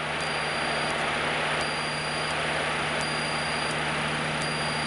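Steady in-flight cabin drone of a Cessna 152: engine and propeller hum under airflow noise, with a faint, constant high-pitched whine.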